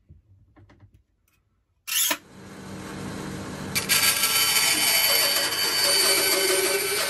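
Faint pen scratches on plastic, then about two seconds in a bandsaw switches on and runs up to speed. From about four seconds in its blade cuts acrylic sheet with a steady hissing whine.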